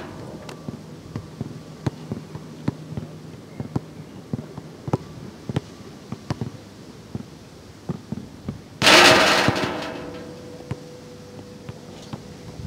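Basketball bouncing on an outdoor court in a series of short knocks, then, about nine seconds in, a shot hits the metal backboard and rim with a loud clang that rings on for a few seconds.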